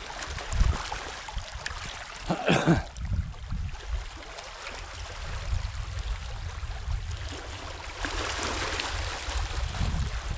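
Sea washing on the shore, a steady watery hiss with a low, uneven rumble underneath. A brief louder rush about two and a half seconds in, and the wash swells again near the end.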